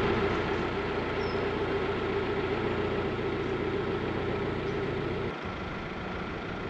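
Narrowboat engine running steadily while cruising. A brief break about five seconds in, after which it carries on a little quieter.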